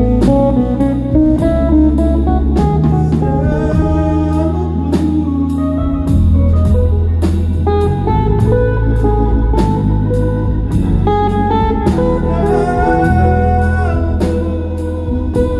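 Live rock band playing: electric bass holding low notes under a drum kit with cymbals, and a lead melody line with sliding pitch bends.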